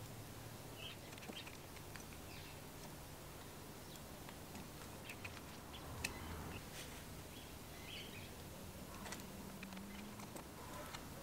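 Small precision screwdriver clicking and scraping in the slots of small brass screws as they are turned in a spirit level's brass top plate, with one sharper click about six seconds in. Faint short high chirps come and go over a low steady hum.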